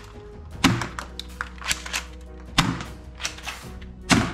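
Toy pistols being handled and knocked against other toys in a cardboard box: small clicks and three louder knocks, over background music.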